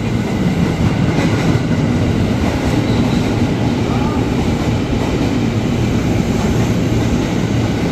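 Electric commuter train (KRL) moving along the platform: a loud, steady rumble of wheels and running gear on the track.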